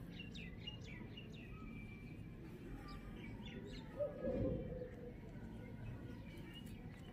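Birds chirping: a quick run of short high chirps in the first second and a half and a few scattered ones later, over a steady background hiss. About four seconds in, a brief louder sound with a falling pitch.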